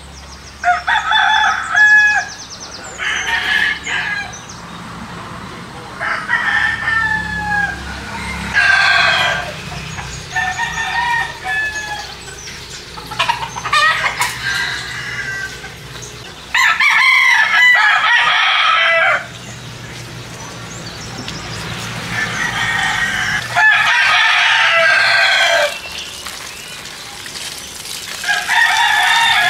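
Roosters crowing, one crow after another about ten times, the longest and loudest a little past the middle.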